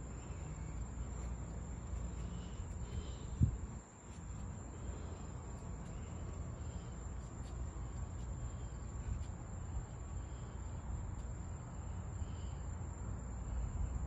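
Insects calling at night: a steady high drone with short chirps every second or two, over a low steady rumble. A single sharp knock sounds about three and a half seconds in.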